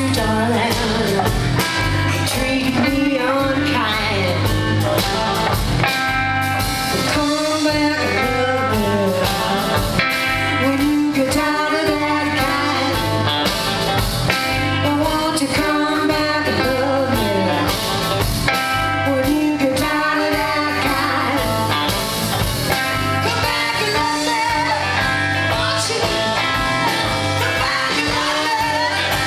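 A live blues-rock band playing: electric guitars and electric bass, with a woman singing.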